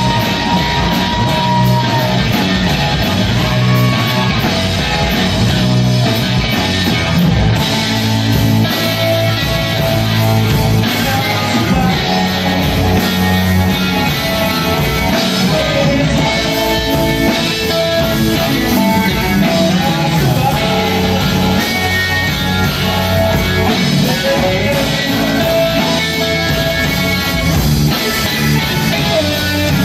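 Live rock band playing loudly: electric guitars over a drum kit, with a held melody line that bends and slides in pitch.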